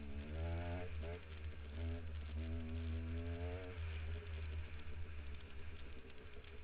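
Dirt bike engine running under throttle, its pitch rising and falling for the first few seconds, then running more steadily, with heavy wind rumble on the microphone.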